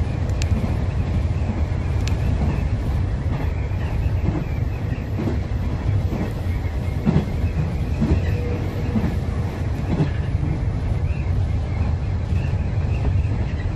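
Hanshin 8000-series electric train running at speed, heard from inside the train: a steady rumble of wheels on rail, with scattered clicks of the wheels over rail joints.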